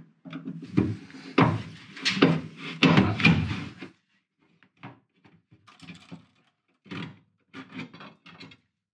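Clanks and rattles of metal fasteners and bracket hardware being worked loose by hand and with a slotted screwdriver. A busy run of knocks comes first, then it thins to scattered short clicks and scrapes for the last few seconds.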